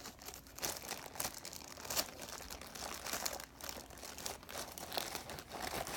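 Packaging crinkling and tearing in irregular crackles as it is pulled off a cup by hand.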